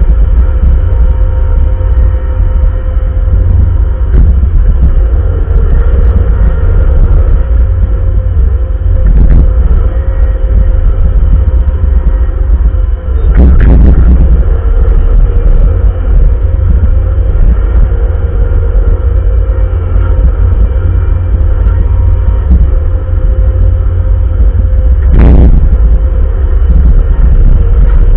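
Bobcat compact wheel loader's diesel engine running steadily under load, with a deep low end and a steady whine above it. Two sharp clunks come through, one about halfway and one near the end.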